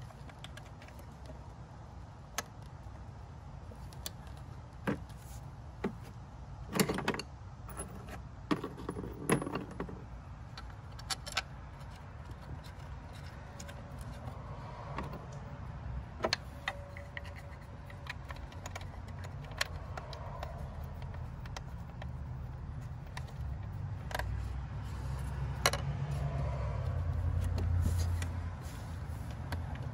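Scattered clicks, clinks and light rattles of hands working among wiring connectors and metal hardware in a car's engine bay, over a low steady hum. Near the end comes a louder muffled rumble as the camera is brushed and handled.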